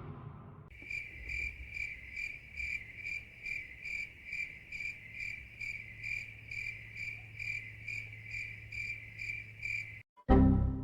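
A single cricket chirping, the familiar crickets sound effect: evenly spaced high chirps, about two to three a second, over a faint low hum. It cuts off abruptly near the end and a brief loud sound follows.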